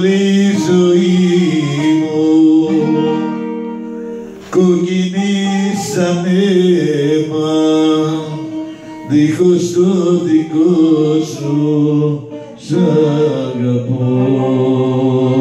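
A man singing a Greek popular song into a handheld microphone, with guitar accompaniment, in about four long phrases of held notes with short breaks between them.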